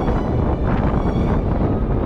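Wind blowing hard over a camera microphone, a loud steady low rush without a break.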